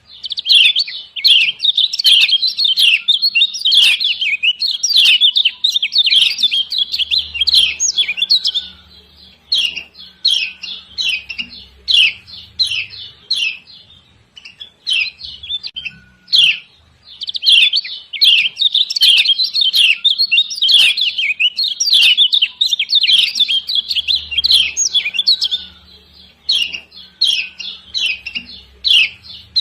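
Female kecial kuning (Lombok white-eye) giving rapid, loud 'ciak ciak' chirps in long dense runs, thinning to scattered chirps between runs: the call bird keepers play as a lure to set a quiet male singing.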